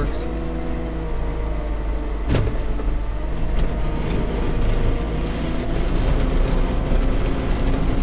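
Cat 257D track skid steer's diesel engine running steadily, with a single clunk about two seconds in.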